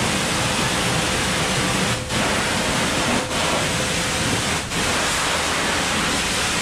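A self-service car wash pressure wand spraying a hard jet of water onto a dirt bike's wheel and frame, a steady loud hiss that breaks off briefly three times as the spray is interrupted.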